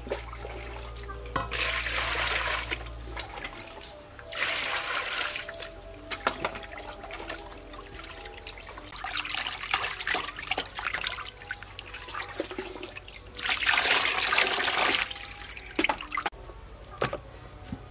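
Water sloshing and splashing in a large stainless steel bowl as raw pork is washed by hand, in several uneven bursts. Near the end the water trickles and drips off the lifted meat.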